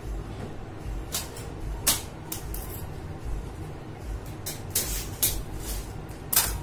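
Cake-decorating scraper and tools handled against the cake turntable and worktop: about ten short, sharp scraping and clattering sounds, the loudest about two seconds in and near the end, over a steady low background rumble.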